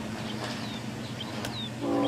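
Songbirds chirping with short downward whistles over a faint low rumble, with one sharp click about a second and a half in. Near the end a locomotive's multi-chime horn chord starts sounding loudly.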